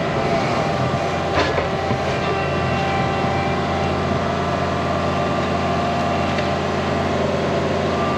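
Diesel engine of a piece of heavy equipment running steadily at working speed, with a single sharp knock about a second and a half in.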